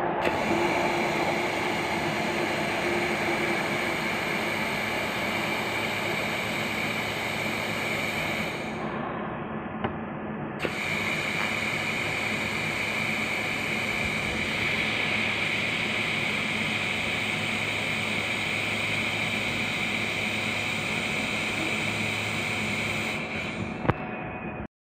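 Handheld fiber laser welding machine running: a steady hiss with a high tone over a low hum. The hiss and tone break off for about two seconds near the middle, then resume, and the sound cuts off suddenly near the end.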